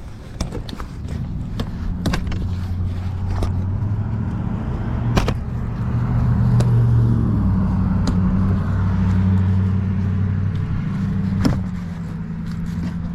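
An engine running with a steady low hum that swells towards the middle and eases off near the end, with scattered sharp knocks.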